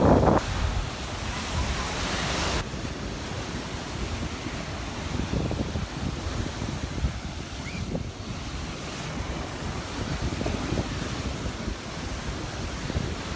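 Small surf washing onto the beach, with wind buffeting the microphone. A brighter hiss runs for the first two seconds or so and stops suddenly.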